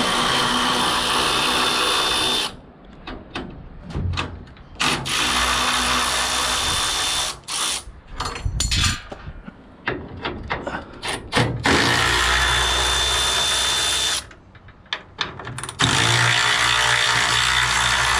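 Power drill driving screws out of the engine-lid brackets: several runs of the motor, each about two seconds long with a faint high whine, separated by short pauses.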